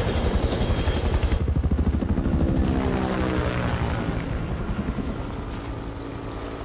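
Helicopter rotor chopping overhead; from about two seconds in its pitch glides down and the sound slowly fades as it flies away.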